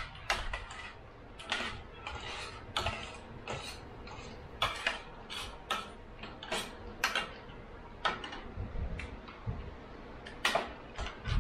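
Metal forks and spoons clinking and scraping against plates as several people eat: irregular sharp clinks, a few each second.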